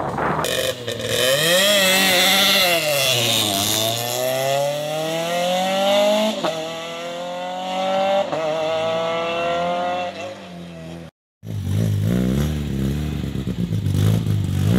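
Rally car engine revved hard at the start, then launched and accelerating away, its note climbing steadily through the gears as it recedes. After a cut, another small hatchback rally car's engine idles at the start line.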